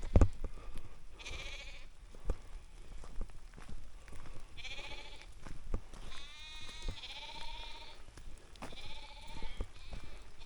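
Sheep and lambs bleating from a flock, about five separate wavering bleats spread over the stretch, some high and some lower. A sharp thump right at the start.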